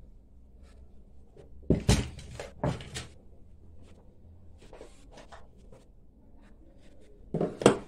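Sharp knocks and clatters of household objects being handled, in short clusters about two and three seconds in and again near the end, with faint ticks between.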